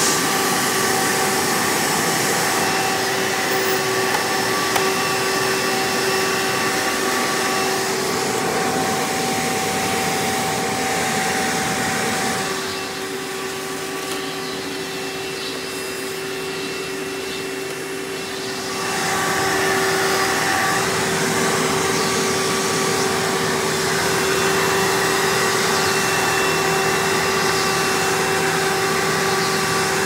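Hoover Elite-based direct-air upright vacuum running in tool mode through its hose and crevice tool: a steady motor whine over rushing air. About twelve seconds in, the air noise drops and dulls for about six seconds, then comes back to full strength.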